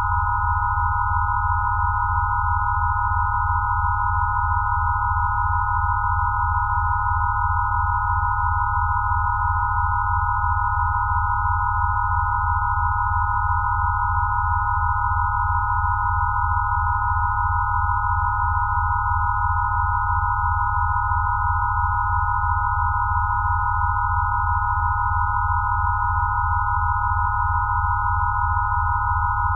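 Synthesized Rife healing-frequency tones: a steady cluster of pure sine tones around 1 kHz layered over a low tone with a fast, even flutter, unchanging throughout.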